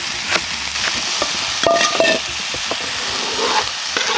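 Spring onions sizzling in oil in a frying pan while a utensil stirs and knocks against the pan about twice a second. A short metallic ring sounds near the middle.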